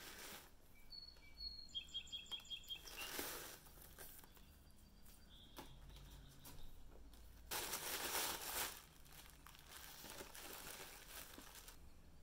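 Brown paper wrapping crinkling and rustling in several bursts as a parcel is untied and unwrapped. A few faint high chirps sound about two seconds in.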